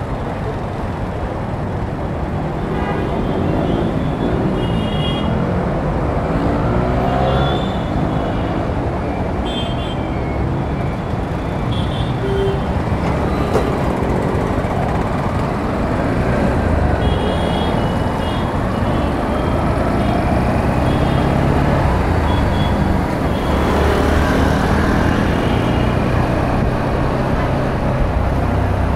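Dense city road traffic heard from a moving bike: a steady rumble of engines and tyres, with short high-pitched horn toots every few seconds.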